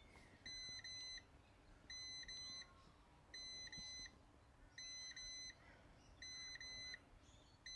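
Ryobi 18V ONE+ jump starter beeping in pairs of short, high beeps, five pairs about a second and a half apart, as it primes and charges its capacitors for a start on a dead car battery.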